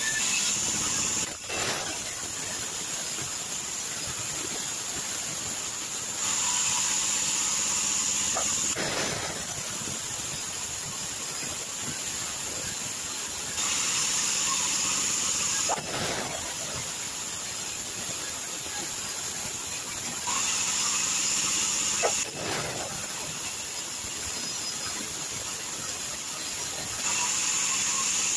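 Sawmill band saw running steadily and ripping logs into boards. Four times, about seven seconds apart, the saw grows louder and hissier for two to three seconds as it cuts, and each cut ends with a short knock.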